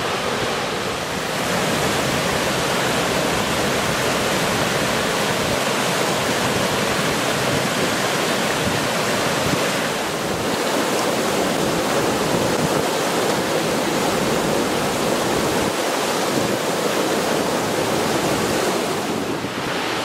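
River rapids rushing and churning over rock ledges and a low weir: a steady, even roar of water.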